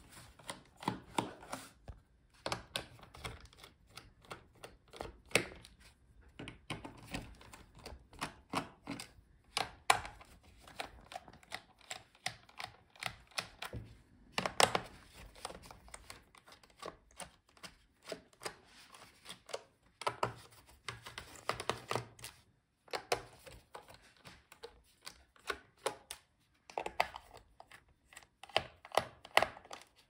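Precision screwdriver loosening the captive bottom-cover screws of a Lenovo ThinkPad T16 Gen 2 laptop: irregular light clicks and ticks of the bit on the screws and the case, with the tool and laptop being handled between screws.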